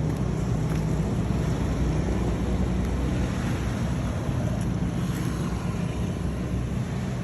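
Gun-style tyre inflator's motor and air pump running steadily, a low hum under a rushing noise, as it pumps air into a tyre.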